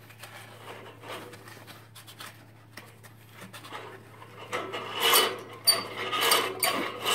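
The metal cleaning lever of a pellet boiler's turbulator mechanism, worked upright by a gloved hand among the spiral turbulators in the fire tubes: metal scraping and rubbing. It is faint at first and grows into louder rattling and clinking in the last two or three seconds.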